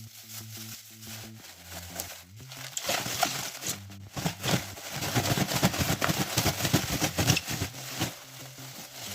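Dense crackling, made of many short sharp crackles close together, starts about three seconds in and lasts some five seconds over soft background music.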